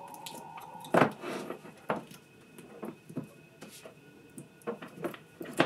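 Handling noise from a lithium-ion battery pack being worked on by hand: cells, wires and multimeter probe leads moved about, with a sharp knock about a second in, another near the end, and light taps and rustles between.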